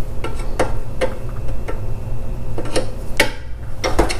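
Scattered light metal clicks and taps as a screwdriver and loose bolts are handled against the metal rails of a TV wall-mount adapter plate, over a low steady hum.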